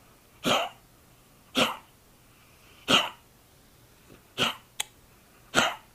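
Dog giving short, sharp coughs in a steady series, five about a second apart, while napping.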